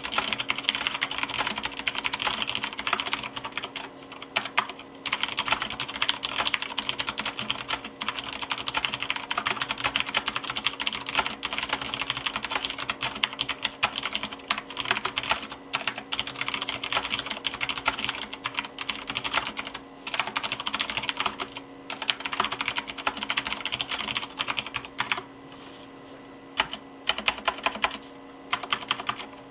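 Fast, continuous typing on a Ganss GS104 mechanical keyboard with Cherry MX Clear tactile, non-clicky switches, unlubricated, under stock ABS OEM-profile keycaps. The typing breaks off briefly a few times and thins to a few separate keystrokes near the end.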